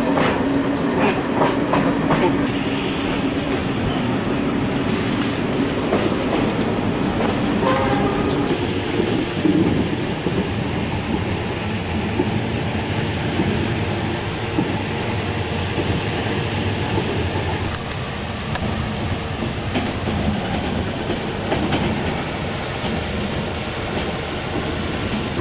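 Passenger train running on the rails, heard from inside the carriage: a steady rumble and rattle with wheel clicks over the rail joints. A high hiss joins about two seconds in and fades away past the middle.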